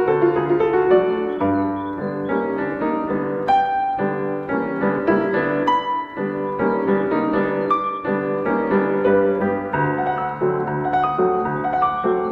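Piano music: a steady flow of single notes over held low notes.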